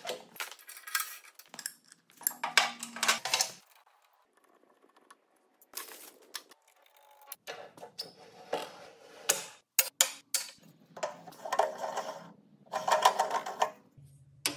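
Hands working the metal parts of a new King Canada wood lathe: irregular clicks, clunks and scraping from its levers, knobs and faceplate, coming in short clusters with brief pauses between them. The motor is not running.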